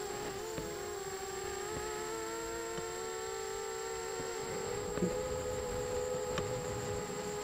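Eachine Racer 250 quadcopter in flight: its motors and propellers give a steady buzzing whine made of several close pitches that slowly drift apart and back together.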